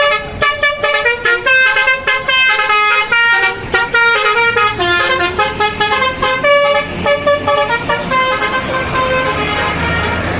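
Tour bus basuri telolet horn playing a fast melody of short stepped notes, with the bus engine running underneath. The notes grow fainter near the end.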